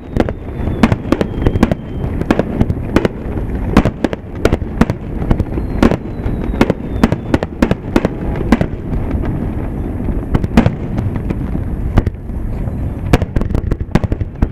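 Aerial firework shells bursting in a rapid finale barrage: sharp booms several times a second over a continuous low rumble.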